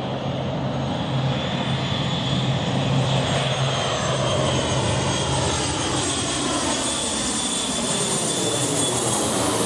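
Avro RJ85 with its four Honeywell LF507 turbofans passing low overhead on final approach with the gear down. The jet whine and low hum run steadily, and the sound sweeps and shifts near the end as the aircraft goes over.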